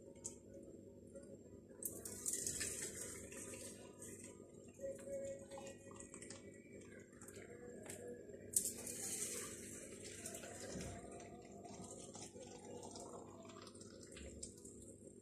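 Boiling water poured from a stainless steel kettle into glass jars of cucumbers, a splashing, hissing pour heard in two stretches of about two seconds each, with quieter gaps as the kettle moves between jars.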